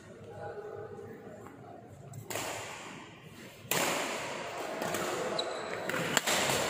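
Badminton rally: rackets striking a shuttlecock, with a sharp smash hit about six seconds in. A sudden rise in background noise comes midway.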